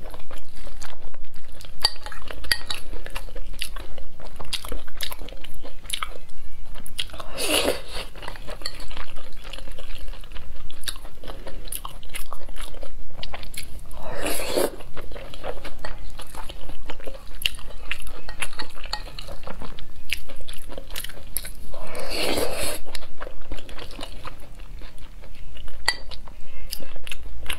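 Close-miked eating of mapo tofu over rice: continuous chewing and mouth clicks, with a spoon and chopsticks clinking against a ceramic bowl. A louder scraping scoop of the spoon through the bowl comes about every seven seconds.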